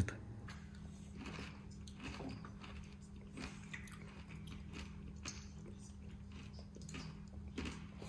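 Xiaomi Mop 2 robot vacuum-mop running: a faint, steady low hum with scattered crackling clicks as it moves over the floor.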